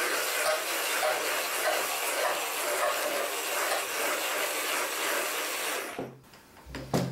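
Hand-held immersion blender running in a plastic beaker, whisking raw eggs, with a steady whirring drone that cuts off about six seconds in. A single knock follows near the end.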